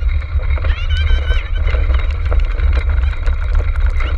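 Rumble and rattle of a dog-pulled racing cart rolling over rough ground, with wind buffeting the mounted microphone and many small clicks. A brief high-pitched call comes about a second in.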